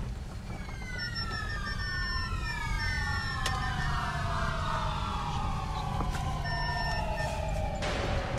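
Low rumble of a car driving on a dirt track, heard from inside the cabin, under a whine of several tones that glide slowly downward over several seconds, with a few short beeps. A loud hiss comes in near the end.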